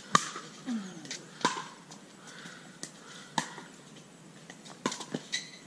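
Pickleball rally: paddles striking the plastic ball in sharp pops, starting with the loudest one on the serve just after the start, then a hit about every second or so, and a quicker run of three or four hits near the end.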